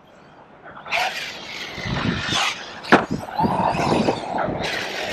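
Arrma Kraton 6S brushless RC monster truck running hard, starting about a second in: its motor whine rises and falls over a dense rushing noise, with a sharp knock just before the three-second mark.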